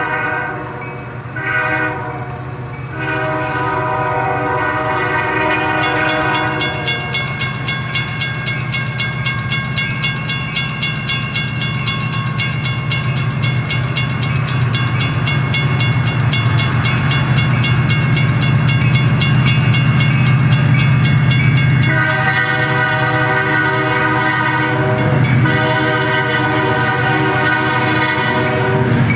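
Diesel freight locomotive sounding its multi-chime air horn in a series of long and short blasts for a grade crossing, over the steady low rumble of its engine. Between the horn sequences, the crossing signal's bell ticks rapidly and evenly.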